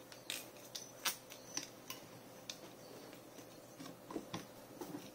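Scattered light clicks and taps from hands handling a Creality Ender 3 3D printer's print bed and aluminium frame in foam packing, at irregular intervals, the sharpest about a second in.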